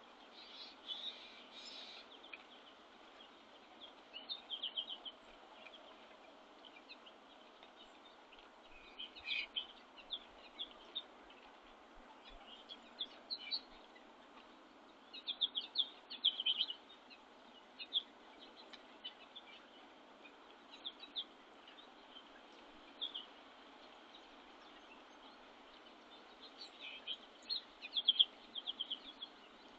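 Small songbirds chirping: short, high chirps in scattered clusters, some in quick runs, over a steady faint background hiss.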